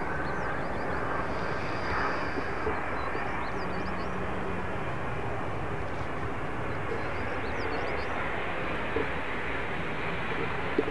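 Jet engine noise from a Boeing 777-200ER on final approach, heard as a steady, even rushing noise. Faint high chirps come and go above it.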